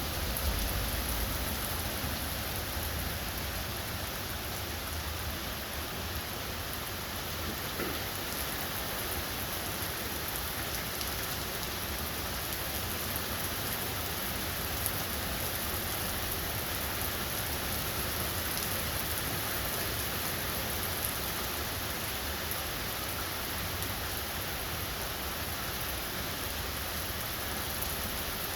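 Steady rain pouring down in a rainstorm, an even hiss of falling water with no let-up.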